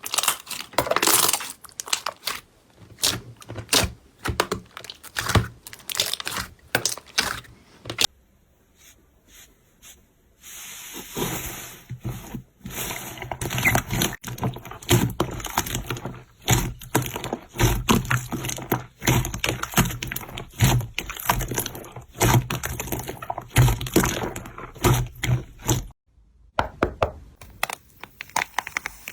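Slime being handled, pressed and squished by hand, giving quick runs of sticky clicks, pops and crackles. The sound drops away for a few seconds about eight seconds in and briefly again near the end.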